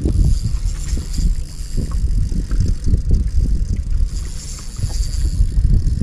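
Wind buffeting the camera microphone and water slapping the boat's hull, a heavy uneven rumble, with a faint high whirr from a spinning reel being wound as a hooked fish is played.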